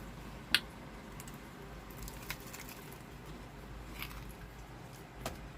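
A person chewing a bite of fried chicken: scattered short crunchy clicks and wet mouth sounds, the sharpest about half a second in.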